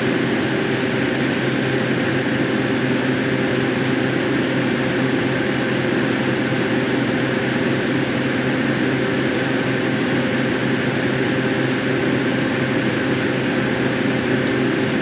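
Steady machinery fan noise: an even rushing sound with a low, unchanging hum underneath.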